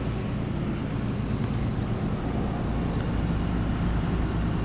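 A steel trawler's inboard diesel engine drones steadily while under way at sea, with wind and water noise over it.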